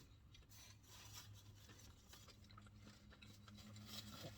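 Near silence: faint rustling and soft clicks from someone eating a burger, over a low steady hum.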